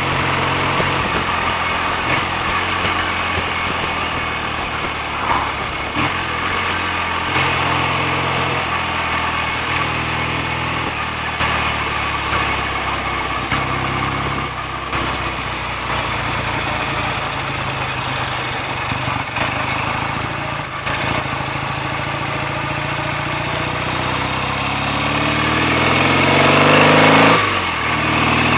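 BSA A65 parallel-twin motorcycle engine running steadily under way, with a hiss of wind and road noise. Near the end the revs climb, then fall sharply.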